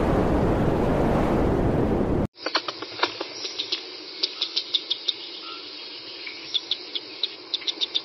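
A loud rushing whoosh cuts off abruptly about two seconds in. A red squirrel then gnaws food at a feeder, with irregular sharp clicks and cracks several times a second over a faint hiss.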